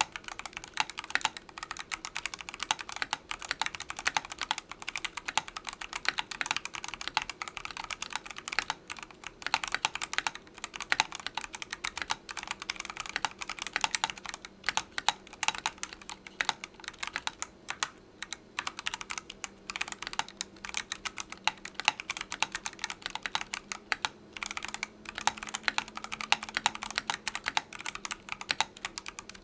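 Steady, fast typing on a mechanical keyboard with C3 Equalz × TKC Kiwi tactile switches and Matrix keycaps: a continuous patter of key presses and returns.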